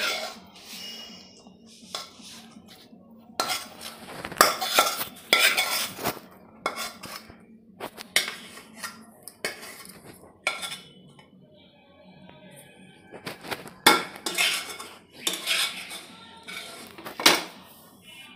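Metal spatula scraping and knocking against a metal kadai and a square metal tin, in irregular bursts, as thick, grainy kalakand mixture is scraped out and spread in the tin.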